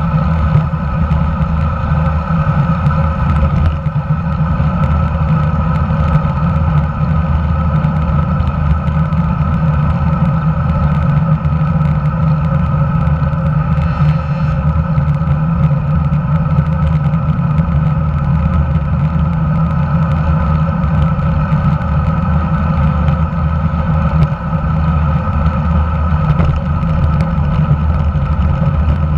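Steady rumble and droning hum of road vibration and wind picked up by a camera mounted under a road bike's handlebars while riding along asphalt.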